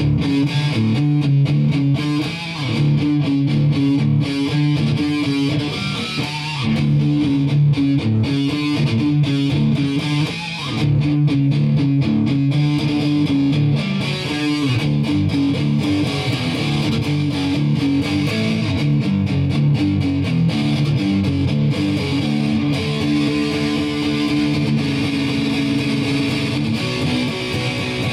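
Electric guitar playing an instrumental rock piece, a rhythmic run of picked notes and chords.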